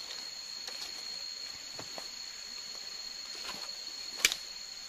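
Steady high-pitched drone of forest insects, with one sharp knock about four seconds in.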